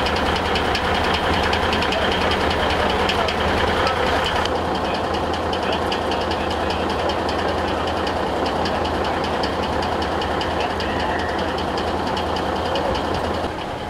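Large truck's diesel engine idling with a fast, even clatter. The tone shifts slightly about four and a half seconds in, but the clatter carries on.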